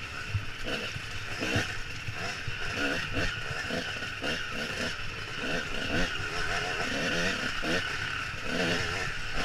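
Dirt bike engine heard from the rider's helmet, its pitch rising and falling over and over as the throttle is worked over a rocky woodland trail.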